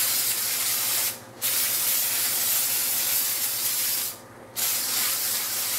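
Aerosol can of stone-fleck texture spray paint hissing in long sprays, with short pauses about a second in and about four seconds in.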